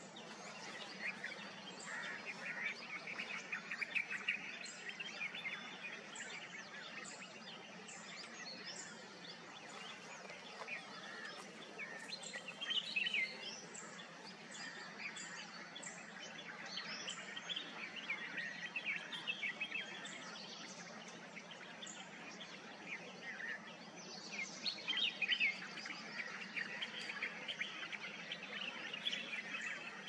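Red-whiskered bulbul singing: bouts of quick warbled phrases every few seconds, loudest about four seconds in, around thirteen seconds and around twenty-five seconds, over a faint steady background hum.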